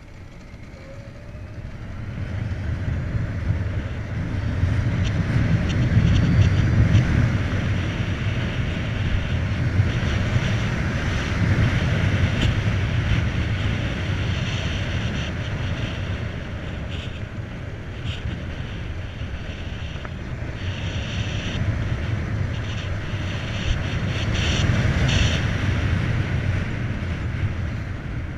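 Wind buffeting the microphone, with road noise, while riding a Volta BCN Sport electric motorcycle. It grows louder over the first few seconds as the bike gathers speed, then rises and falls with speed through the bends.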